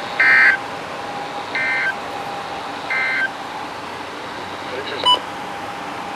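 NOAA Weather Radio sending the EAS/SAME end-of-message data code: three short bursts of warbling digital data tones, about a second apart, that mark the end of the alert broadcast. A brief beep follows about five seconds in, over a faint steady whine.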